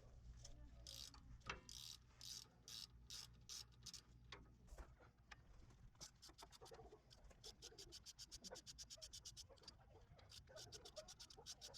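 Ratchet wrench with a 10 mm socket clicking as the rear brake caliper bolts are turned out, faint; spaced clicks at first, then a fast, even run of clicks from about halfway.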